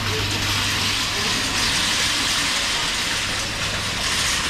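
Steady rushing street noise with a low hum underneath; the hum stops about four seconds in.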